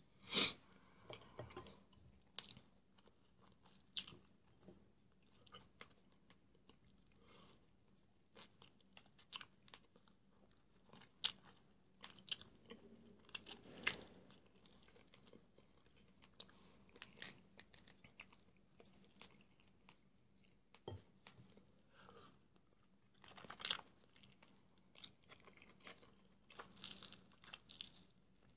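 A person chewing and biting, bread and meat gnawed off a duck bone, with scattered short smacks and crunches at irregular intervals.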